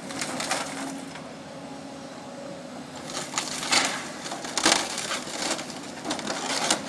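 Excavator engine running while its bucket and thumb crush building debris during demolition. Several loud crunching crashes come from about three seconds in.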